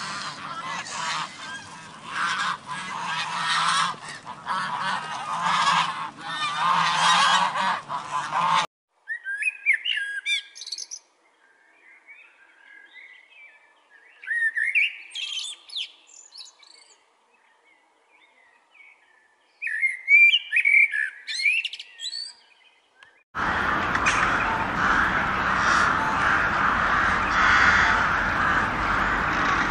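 A flock of domestic geese honking, cutting off about nine seconds in; then a common blackbird singing three short phrases with pauses between; then, from about 23 seconds in, a flock of crows cawing.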